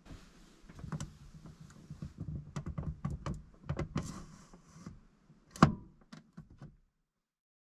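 Rustling and a run of small knocks and clicks as a person shifts about and handles things in the confined space of a camper van. The loudest is one sharp click near the end, as the battery camping lantern is switched off.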